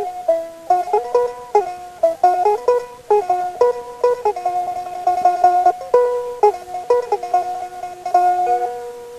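Instrumental music: a plucked string instrument plays a melody, with some held notes picked in quick repetition.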